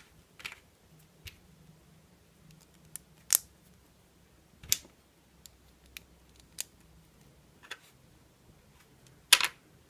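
Lego plastic pieces clicking as plates and tiles are handled and pressed together, a dozen or so scattered sharp clicks with the loudest, a quick double click, near the end.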